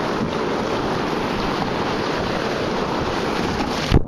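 Whitewater rapids rushing in a loud, steady roar of churning water heard close up. Near the end comes a sharp thump, and then the sound changes abruptly.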